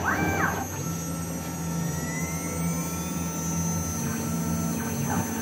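6040Z CNC router running: the spindle gives a steady high whine while the stepper motors move the axes, with a quick rising-then-falling whine at the start as the machine moves into position, then a steady motor tone as the spindle and end mill lower onto the aluminium block.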